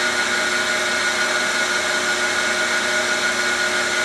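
Cylindrical grinder running steadily with its wheel grinding a shaft in a heavy cut: an even whine holding several constant tones.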